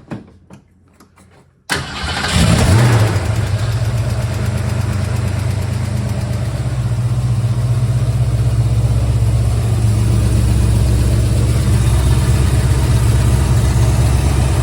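1971 Mercury Comet's engine starting: it catches suddenly about two seconds in, flares briefly, then settles into a steady idle.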